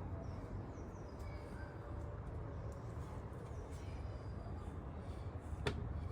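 Small birds chirping faintly, short high chirps every second or so, over a steady low rumble; a single sharp click near the end.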